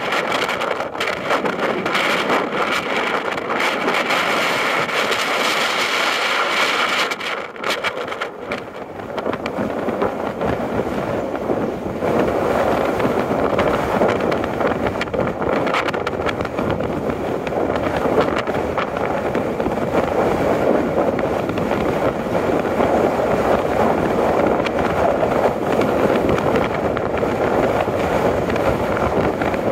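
Diesel site machinery running, with wind on the microphone. Early on, the steady engine note of a site dumper; after a short dip about eight seconds in, a denser, even noise while an excavator loads the dumper.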